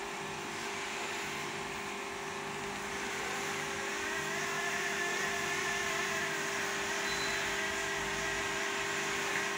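Dental slow-speed handpiece running steadily while polishing a child's teeth, with a higher whine coming in about four seconds in.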